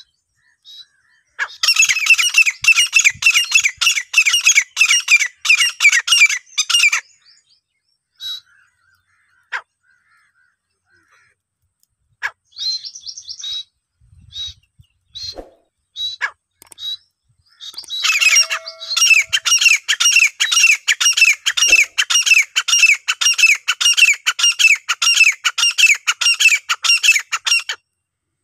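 Grey francolin (desi teetar) hen calling: two long bouts of rapid, high-pitched repeated notes, about four a second, with scattered single calls between them.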